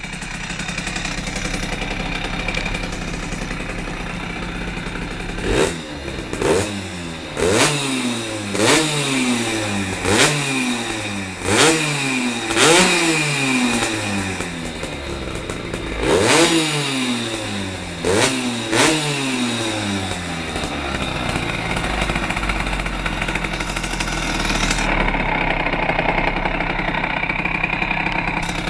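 Simson moped's single-cylinder two-stroke engine, tuned with a Spawak 70 cc cylinder and a 16 mm Dellorto carburettor, idling, then revved in a quick series of sharp throttle blips, each rising and falling in pitch, from about six to nineteen seconds in, before settling back to idle.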